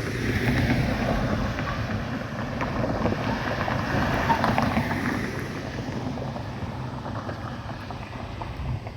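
Street traffic noise from a passing vehicle, swelling over the first few seconds and then slowly fading, with wind rumbling on the microphone.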